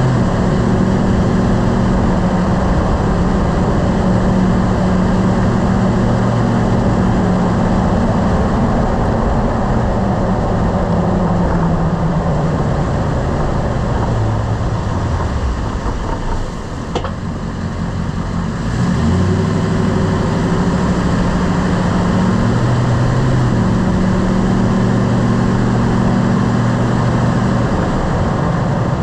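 Lifted truck driving, its engine and road noise falling as it slows to a stop. A single clunk comes a little past halfway, as it stops: the braking clunk whose cause the owner is trying to find. Then the engine rises again as the truck pulls away.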